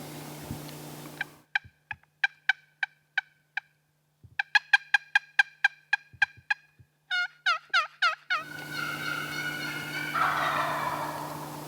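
Wild turkey calling: a series of sharp two-note yelps, then a fast run of cutting notes and a few swooping yelps, followed by a rough, rattling gobble near the end.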